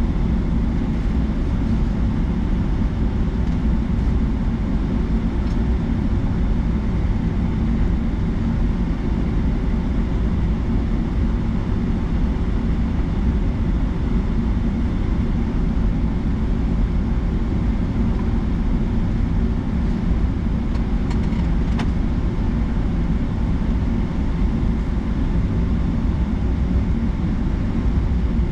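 Boeing 757-200 jet running steadily, heard as a constant low rumble of engine and airflow noise with a faint, steady whine above it.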